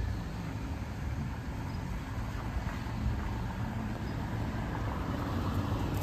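Steady low rumble of outdoor background noise with a faint hiss above it, unchanging throughout.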